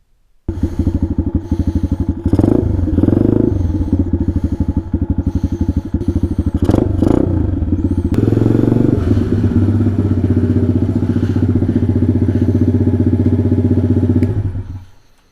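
A Taotao DB17 125 pit bike's small single-cylinder four-stroke engine comes in abruptly about half a second in and runs at a steady idle, blipped up in revs a few times. Near the end it dies away.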